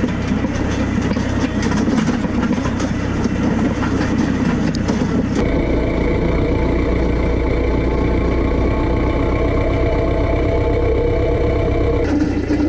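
New Holland TL90 tractor's diesel engine running steadily under way. About five seconds in the sound changes abruptly to a steadier, evenly pitched drone, and it changes back near the end.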